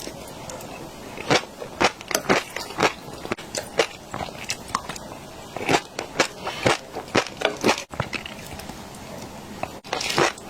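Close-miked chewing of fish roe: a quick, irregular series of crisp crunches and pops, two or three a second.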